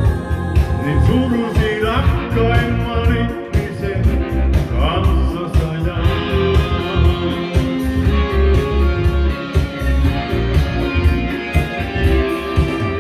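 Karaoke backing track playing, with guitar and a pulsing beat, and a man singing over it into a handheld microphone.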